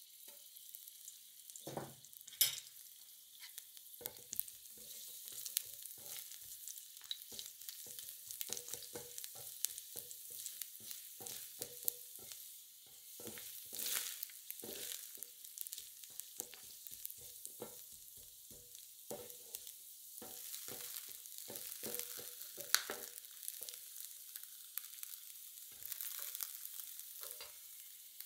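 Sliced garlic sizzling in a little oil on a hot non-stick hot plate: a steady light hiss, broken by frequent short clicks and scrapes of two spatulas pushing and turning the slices.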